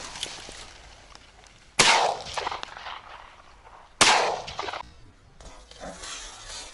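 Two shotgun shots about two seconds apart, each a sharp loud report that rings out and dies away over most of a second: shooting at partridges.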